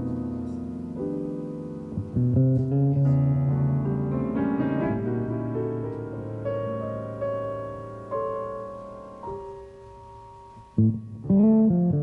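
Piano playing slow chords that ring out and fade, growing quieter toward the end before a quick run of notes and a loud chord.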